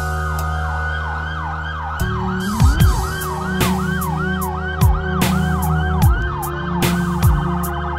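Hip-hop instrumental beat built on a siren-like synth wail that swoops up and down a few times a second. A deep held bass slides in about two seconds in, under heavy kick drums and sharp snare and hi-hat hits.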